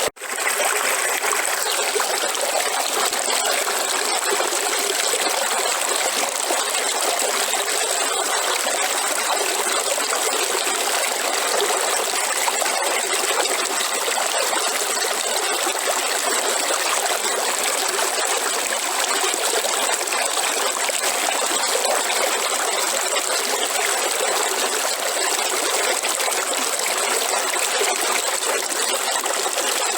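River water flowing steadily, a continuous rushing and trickling. It cuts out for an instant at the very start, then runs on unchanged.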